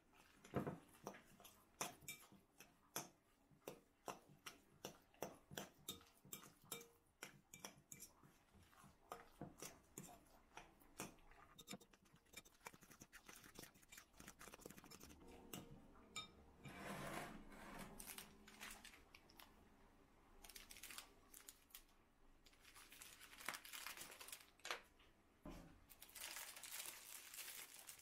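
Metal spoon stirring curd cheese and cream in a glass bowl, clicking against the glass about two to three times a second. In the second half, longer stretches of plastic rustling and crinkling as a piping bag is handled.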